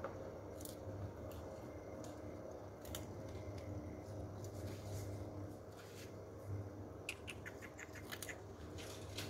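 Scattered small clicks and taps over a steady low hum, with a quick run of about six clicks close together near the end.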